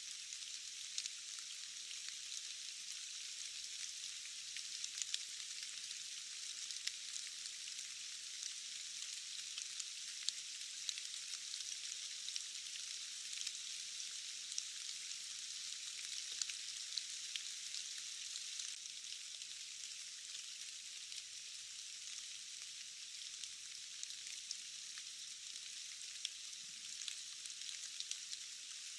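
Steady rain falling, a fine hiss dotted with many tiny drop ticks. The sound is thin and hissy, with no low rumble beneath it.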